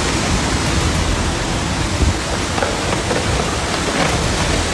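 Storm wind and heavy rain making a loud, steady rushing roar.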